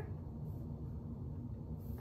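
Quiet room tone: a steady low hum and no distinct sound.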